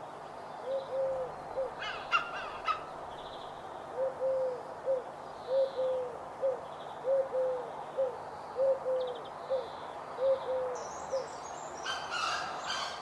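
A bird repeating a low, hooting three-note call, two longer notes and a short one, about every second and a half. Another bird gives short, higher calls about two seconds in and again near the end.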